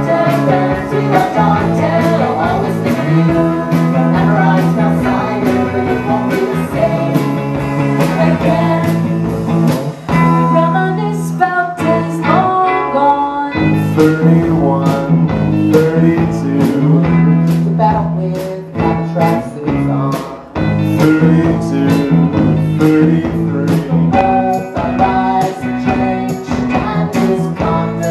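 Live indie-pop band playing a song: guitars, keyboard, bass and drums. The band briefly thins out twice, about ten seconds in and again near twenty seconds.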